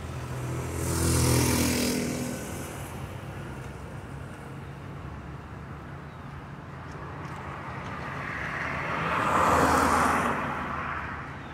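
Two cars passing by on the street, the first about a second in with its engine note dropping in pitch as it goes, the second near the end with mostly tyre noise. Each one swells and fades over a steady low traffic hum.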